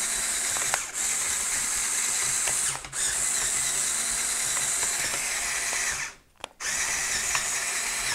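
Small electric motor and plastic gearing of a brick-built RC tank's turret drive whirring as the turret is swung round, starting and stopping in spurts: brief stops about a second in and near three seconds, and a longer pause a little after six seconds.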